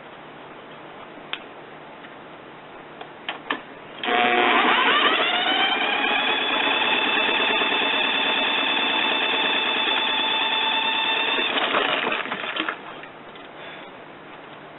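Power drill spinning the lawn mower engine over, in an attempt to start it without the broken pull cord: a few clicks, then a whine that rises quickly and holds steady for about eight seconds before cutting off. The engine does not catch.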